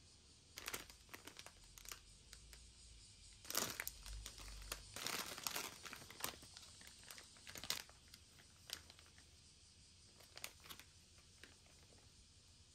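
Plastic product packaging crinkling as it is handled, in irregular spurts from about half a second in, loudest around four to six seconds, tapering to a few faint crackles after about eight seconds.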